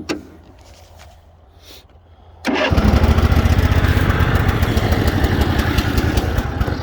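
A Cub Cadet zero-turn mower's Briggs & Stratton engine starting up. After a quiet couple of seconds it catches suddenly about two and a half seconds in, then runs loud and fast on choke from a cold start.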